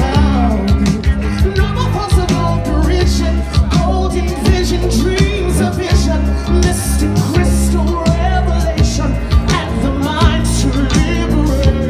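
A singer's voice through a PA over amplified music with a steady beat and heavy bass.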